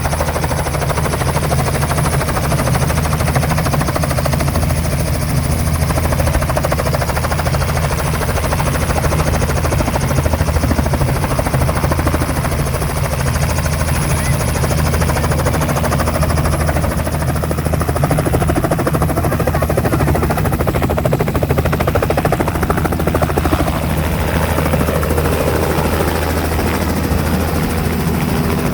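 Helicopter running, its rotor giving a steady, loud low throb, with a faint high whine that fades out about halfway through.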